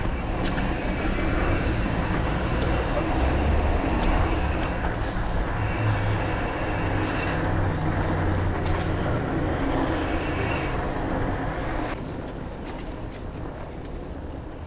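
Wind and road noise from riding a bicycle down a street, with a motor vehicle's engine running close by. The noise drops about twelve seconds in.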